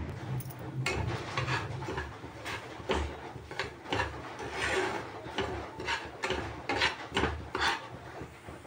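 Steel spatula scraping and stirring semolina as it roasts in ghee in a frying pan: a run of irregular scraping strokes against the pan.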